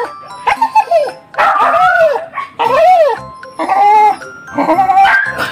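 A dog gives a string of about six high cries, each about half a second long, that rise and fall like a horse's whinny. Background music plays underneath.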